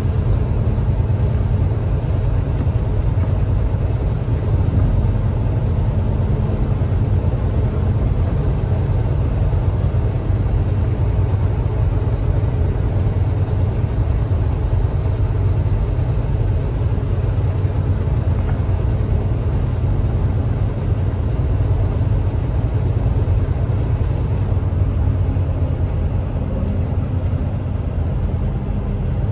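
Semi truck cruising, heard from inside the cab: a steady low engine and road rumble with a constant hum that does not change pitch.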